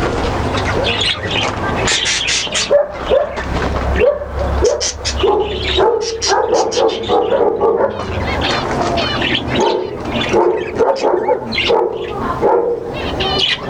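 Cage birds chirping many times over, with dogs barking among the calls.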